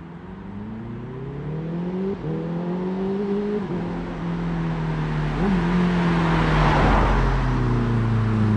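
An approaching road vehicle's engine accelerating through the gears, its pitch climbing and dipping at each upshift, growing steadily louder; it cuts off abruptly at the end.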